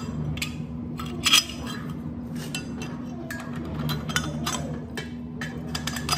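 Steel suspension parts clinking and knocking as a coil-spring shock absorber and its M12 bolt are handled and fitted into the front suspension mount: a string of irregular sharp metal clinks, the loudest about a second in. A steady low hum runs underneath.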